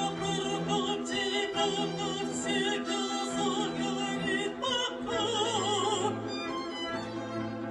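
Operatic female voice singing with vibrato, accompanied by flute, violin, viola and cello in slow sustained lines; low held notes from the cello come in about five seconds in.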